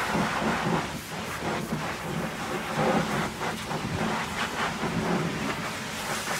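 High-pressure washer jet blasting caked mud off a truck's chassis and wheel area, a steady hiss of spray with uneven spattering as mud and water strike the steel.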